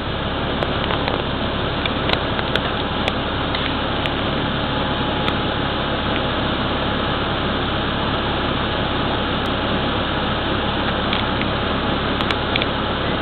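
Steady noise of a bus idling, heard from inside the passenger cabin, with occasional light clicks.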